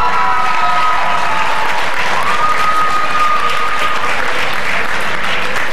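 Audience applauding in a large hall, many hands clapping steadily. A steady high note is held over the clapping for a couple of seconds near the middle.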